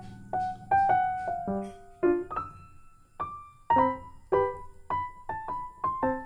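Background piano music: a gentle melody of single struck notes, a few a second, each ringing and fading.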